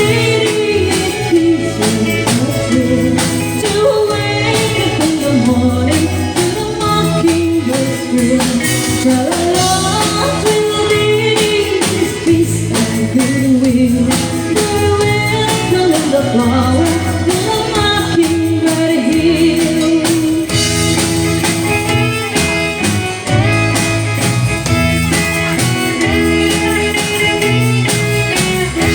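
Live band performing a song: a singer's voice over guitar, bass and a drum kit keeping a steady beat.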